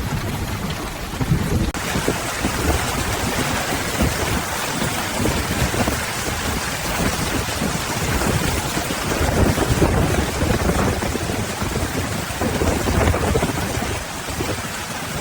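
Heavy rain pouring down in a thunderstorm, a dense steady hiss with low rumbling underneath.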